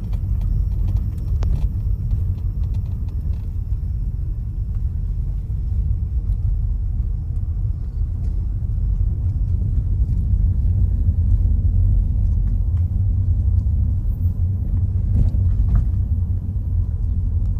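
Steady low rumble of a moving road vehicle, with a few faint clicks.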